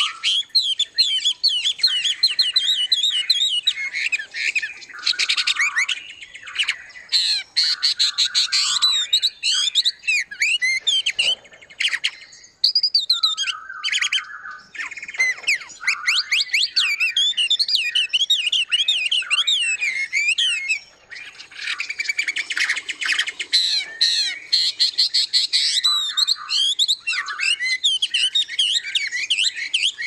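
A chorus of many small caged songbirds chirping and singing together: quick high twitters and trills overlapping almost without pause, with two brief lulls.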